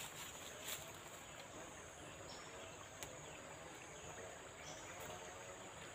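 Faint, steady high-pitched drone of insects, with a couple of faint clicks.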